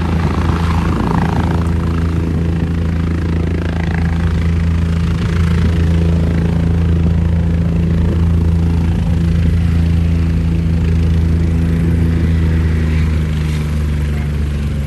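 Medical helicopter's rotor running loudly and steadily as it sets down to land and sits on the ground with the blades still turning, a steady low rotor drone.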